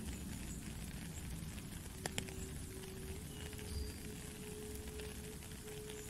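Steady rain falling on a puddle and wet ground, with a soft indigenous flute holding long low notes, moving to a slightly higher note about three seconds in. Two sharp ticks about two seconds in.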